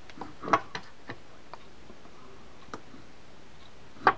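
Light metallic clicks and taps as the bale wire of a Penn Battle 4000 spinning reel is worked by hand against the reel's rotor and bale arm, about half a dozen irregular ticks, the loudest just before the end. The bale is being re-bent into alignment because of tension from a bend.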